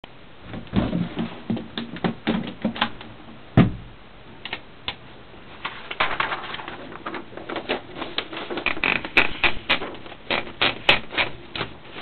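Mechanical clicks and knocks from an Olympia SM-4 portable typewriter and its case being handled as the machine is unpacked and readied. A cluster of clicks comes first, then one heavy knock about three and a half seconds in, then a quick run of clicks in the second half as paper is fed into the platen.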